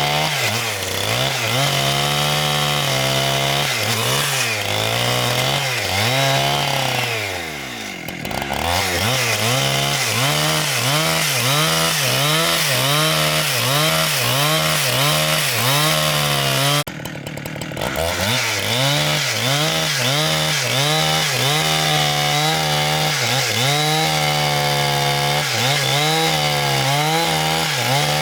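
Chainsaw running under load while cutting through timber: its engine note wavers up and down as the bar bites, and it drops away briefly twice before picking back up.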